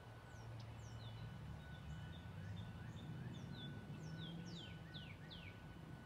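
Songbirds chirping: a run of quick, high, downward-sliding chirps that speeds up into a few longer sweeps near the end, over a low steady hum.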